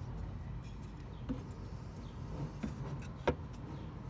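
Faint handling noise from an old voltage regulator being pulled out on its wires, with one sharp tap about three seconds in, over a low steady background rumble.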